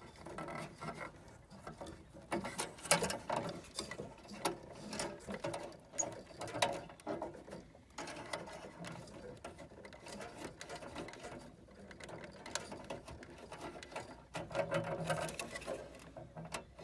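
Irregular small metal clicks, taps and scrapes of a wrench working the pilot tube fitting on a gas furnace, threaded by feel without being able to see it.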